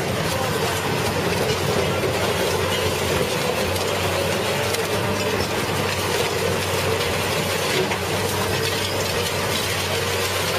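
Heavy machine running steadily: a constant whine with dense clicking and clattering throughout, without a break.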